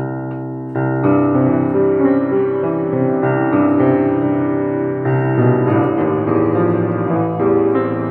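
Piano played by a learner: a slow piece of held chords under a simple melody, fuller from about a second in.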